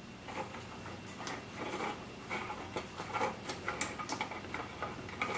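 Screwdriver turning the stock bolt inside a Remington 870 shotgun's buttstock, giving small, irregular clicks and scrapes of the tool in the screw slot.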